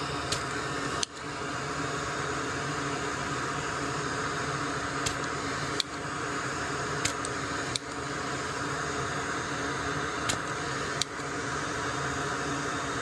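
Steady whirring hiss of a fan running, with about eight light, sharp clicks spread through, like small metal tools touching a circuit board.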